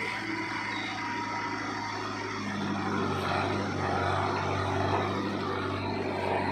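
Mahindra Arjun Novo 605 DI tractor's diesel engine running steadily while working a backhoe loader, getting a little louder in the middle.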